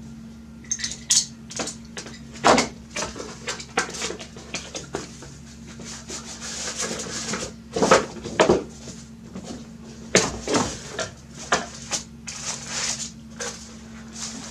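Hands opening a heavily taped cardboard graphics-card box: tape being peeled and torn, with packaging rustling and irregular sharp knocks and clicks of cardboard being handled.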